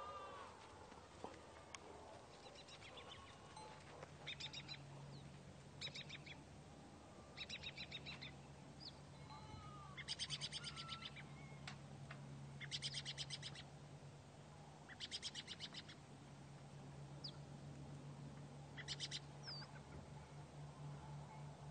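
Farm morning ambience of songbirds: a bird repeats short, rapid trills every couple of seconds, with a few single whistled notes from other birds. A low steady hum runs underneath from about three seconds in.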